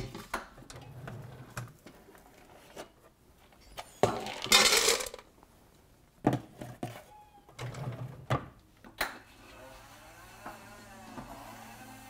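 A stainless steel dog bowl is handled on a plastic food bin: scattered knocks and metallic clinks, with a loud rush lasting about a second a little over four seconds in, then a few more knocks as the bowl is moved.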